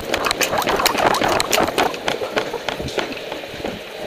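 Quick, irregular footsteps on a hard tiled floor, with clicks and rattles from carried gear and rustling clothing as the wearer hurries along.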